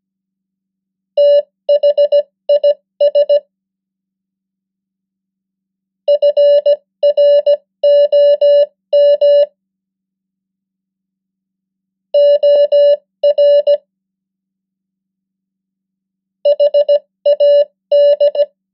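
Morse code beeps from a steady tone near 600 Hz, keyed at 15 words per minute. Four words are sent, each a quick string of short and long beeps, with a pause of a few seconds of silence between words.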